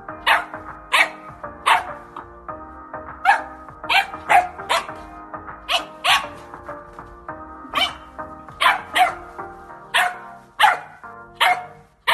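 Puppy yapping again and again at its own reflection in a mirror, taking it for another dog: short, high barks that drop in pitch, coming irregularly about one to two a second.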